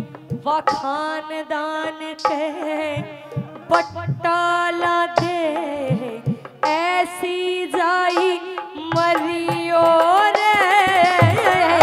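A woman sings a Haryanvi ragni into a microphone in a high, ornamented line with a wavering voice, over live accompaniment of a steady held drone and hand-drum strokes. She sings loudest near the end.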